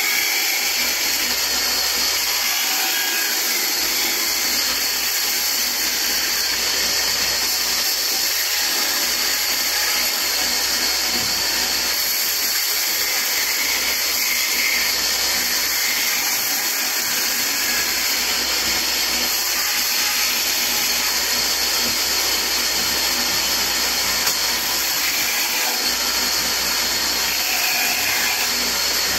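Vertical band saw running steadily while cutting through a block of wood fed by hand; a constant hissing machine noise that stays even throughout.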